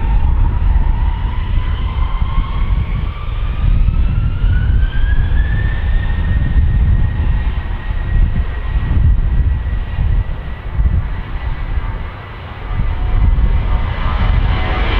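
Jet airliner's engines spooling up to takeoff thrust for the takeoff roll. A whine rises over the first six seconds and then holds steady above a deep, fluctuating rumble.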